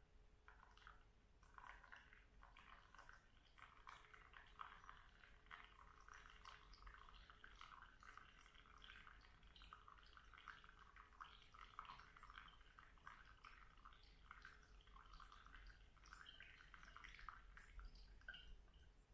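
Faint, steady trickle of a thin stream of hot water poured from a gooseneck kettle onto coffee grounds in a Kalita wave paper filter, with a continuous patter of small splashes.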